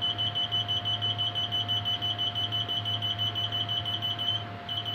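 Rapid electronic beeping, a high tone pulsing several times a second with a short break near the end, over a steady lower tone and a low electrical hum.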